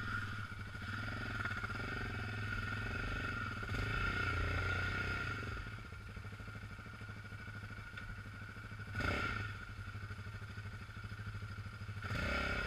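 Quad bike engine running steadily at idle, with a couple of brief rises in revs, the sharpest about nine seconds in.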